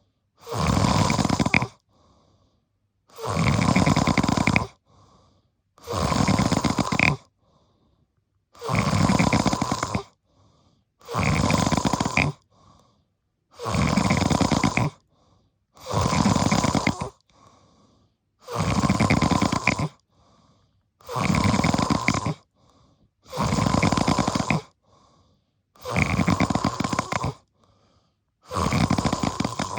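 Deep snoring in a steady rhythm: about a dozen loud snores, each about a second and a half long, coming roughly every two and a half seconds with quiet pauses between.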